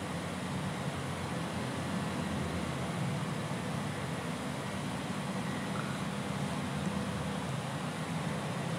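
Steady low rumbling background noise with no distinct calls or knocks.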